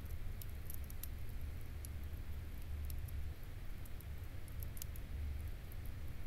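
Wood campfire burning down, with scattered faint crackles and pops at irregular moments over a steady low rumble.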